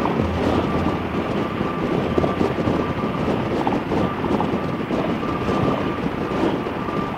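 Harley-Davidson V-twin motorcycle running at road speed, its engine sound mixed with heavy wind noise on the microphone.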